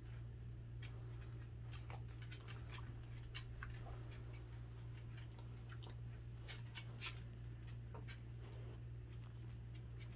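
A dachshund chewing raw chicken: irregular wet crunches and clicks a few times a second, over a steady low hum.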